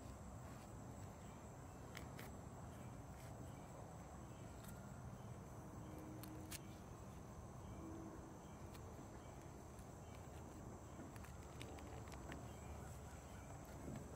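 Faint outdoor ambience: a steady high-pitched insect drone, like crickets, over a low rumble, with a few faint scattered clicks.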